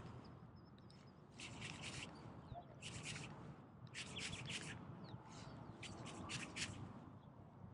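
A spinning reel cranked in short spurts, with scratchy rubbing of hand and sleeve, as a soft jerkbait is twitched and retrieved. The faint clicking comes in about five bursts.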